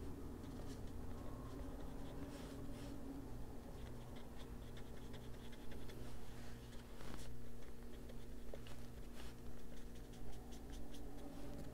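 Small hand-held colouring tool scratching and rubbing on a paper page in short, irregular strokes.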